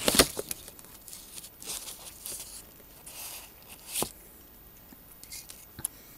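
Plastic model-kit sprues being handled and shifted on a tabletop. It opens with a burst of rustling and knocks, then softer rustles, a single sharp click about four seconds in, and a few faint clicks near the end.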